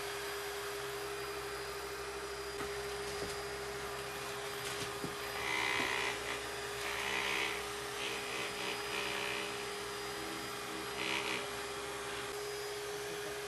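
Supor handheld anti-mite vacuum running with a steady motor hum and hiss. A few brief scratchy noises come in about five to seven seconds in and again near eleven seconds.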